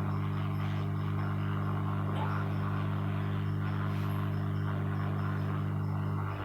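Hot-air rework station running with a steady low hum, which drops off suddenly near the end.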